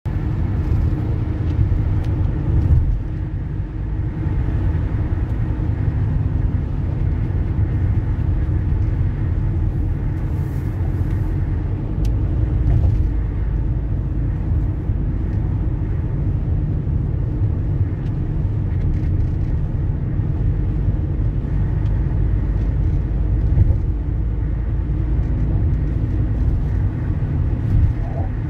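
Steady low rumble of a car's engine and tyres on the road at expressway speed, heard from inside the cabin, with a few brief bumps.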